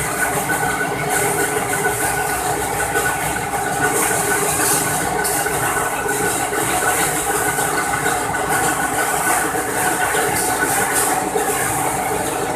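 Sheet-fed laminating machine running steadily, its feed belts and rollers carrying printed sheets through: a continuous mechanical running noise with a few steady whining tones.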